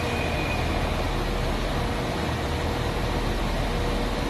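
Northern class 195 diesel multiple unit idling at a platform, its underfloor diesel engines giving a steady low rumble with a faint steady hum.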